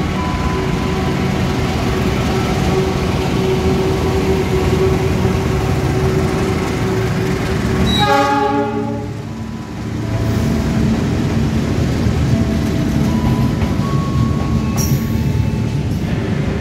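A diesel-electric locomotive hauling passenger coaches passes through the station, its engine running steadily. The horn sounds briefly about eight seconds in, and then the coaches roll past.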